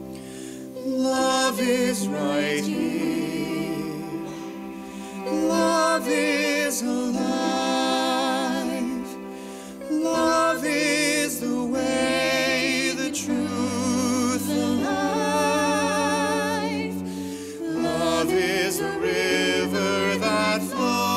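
Live male and female vocal duet with piano and cello accompaniment. The voices hold sustained notes with vibrato.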